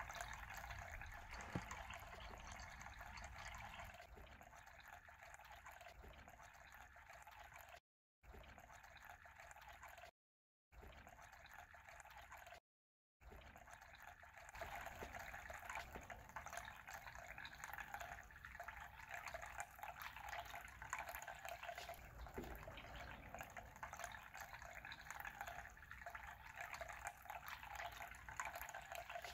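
Faint, steady background hiss that briefly drops to dead silence three times in the middle.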